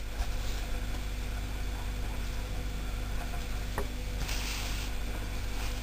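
A steady low mechanical hum, with a brief faint rustle about four seconds in.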